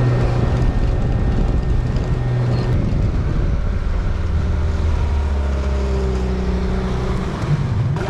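A 15 hp Yamaha outboard motor pushes an inflatable dinghy along at a steady note. About three seconds in it drops to a lower, slower note and holds there as the boat eases off toward the shore.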